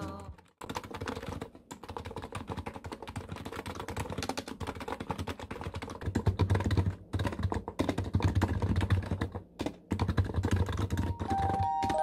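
Fast typing on a computer keyboard: a dense run of key clicks, with short pauses about seven and ten seconds in. A few soft music notes come in near the end.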